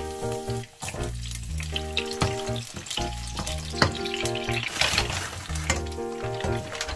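Sliced garlic sizzling as it fries in olive oil in a frying pan, with a metal spatula clicking and scraping against the pan as it is stirred.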